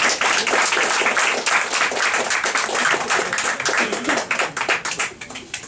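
Small audience applauding, the claps thinning out and dying away near the end.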